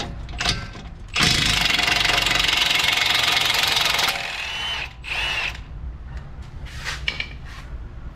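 Cordless impact wrench hammering for about three seconds, breaking loose an 18 mm bolt while a hand wrench holds the nut on the other end. A shorter burst follows about a second later, then light metallic clinks.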